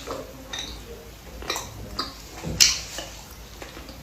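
Close-miked chewing: wet mouth smacks and clicks, about six in four seconds, the loudest a little past halfway.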